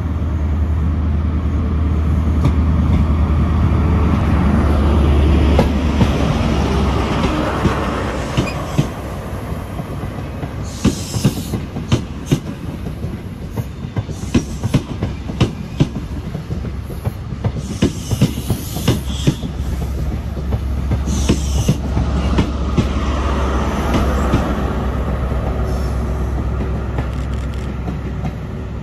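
A ScotRail HST with Class 43 diesel power cars passing. The leading power car's engine drones low. Then the coaches' wheels clatter in quick clicks over rail joints and points, with a few short high squeals. Near the end the trailing power car's engine swells again.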